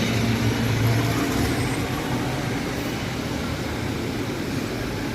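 Street traffic: a motor vehicle's engine running close by, loudest in the first second and a half and then easing off, over steady road noise.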